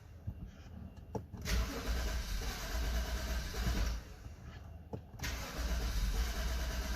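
BMW 528i (F10) engine cranking on the starter in repeated attempts: one burst of cranking starts about a second and a half in, it stops, and another starts at about five seconds. This is the hard cold start that the owner traced to a faulty eccentric shaft sensor.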